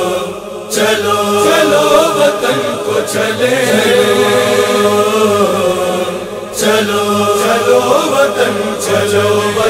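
A cappella devotional chanting by a chorus of voices, wordless and without instruments, in the style of a Muharram noha. It moves in long held phrases, with short breaks about half a second in and about six and a half seconds in.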